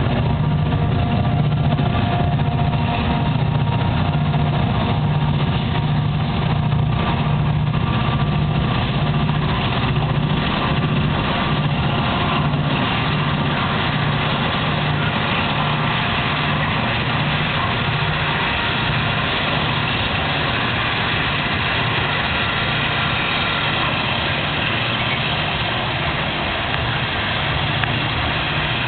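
A GE C44-9W and two EMD SD40-2 diesel-electric locomotives working at full throttle as a freight train pulls away: a loud, steady, pulsing low engine throb, joined by the rumble and clatter of freight cars rolling past.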